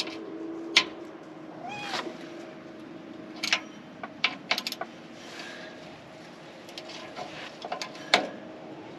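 Hand tools and metal parts handled on the scraper's rectifier housing: scattered sharp clicks and knocks, with a brief squeak about two seconds in, over a steady low hum.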